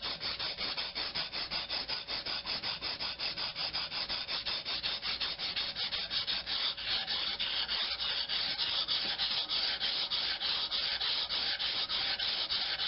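Homemade knife blade, ground from an old file, stroked rapidly back and forth on a wet Japanese water stone: an even, rhythmic scraping at about five strokes a second. The hard, dull blade is taking a lot of work to sharpen.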